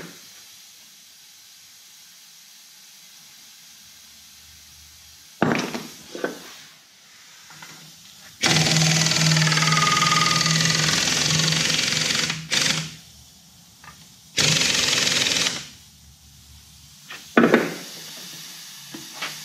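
Pneumatic impact wrench running on the lug nuts of an International Harvester 1086 tractor's rear wheel. It runs in two bursts: a long one of about four seconds starting about eight seconds in, and a short one of about a second a little later. A few metallic knocks come before and after.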